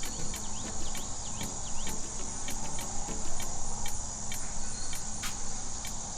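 Crickets chirping: a steady high trill with short pulses a few times a second.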